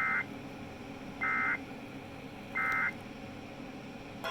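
Emergency Alert System end-of-message signal: three short bursts of SAME digital data tones, about 1.3 seconds apart, over a steady background hiss. They mark the end of the alert.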